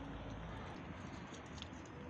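Cats eating, crunching dry kibble: faint, irregular little clicks over a steady background hiss.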